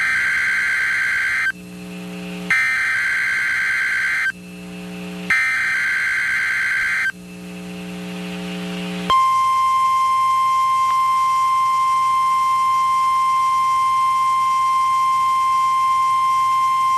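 NOAA Weather Radio EAS test signal: three screeching SAME digital header bursts, with a low buzz in the pauses between them. About nine seconds in, a steady single-pitch warning alarm tone near 1 kHz starts and holds to the end.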